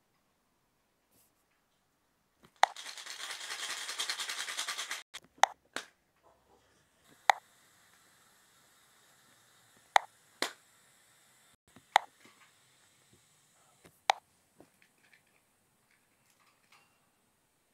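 Toy packaging being opened and handled: a sharp click, then a dense rustling rasp lasting about two seconds, followed by a string of sharp plastic clicks and taps spaced one to two seconds apart.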